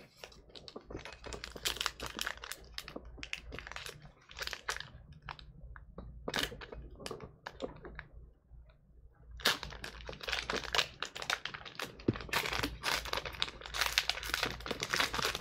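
A Topps Archives baseball card pack wrapper crinkling and tearing as it is peeled open by hand, a run of irregular crackles that grows denser about two-thirds of the way through.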